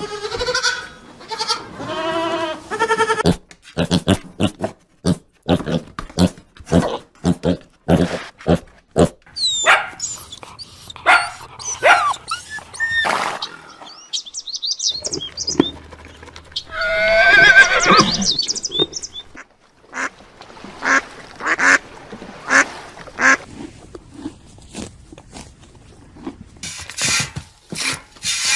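A run of assorted farm animal calls: pitched cries, many short sharp calls, some high chirps, and one long loud call about two-thirds of the way through.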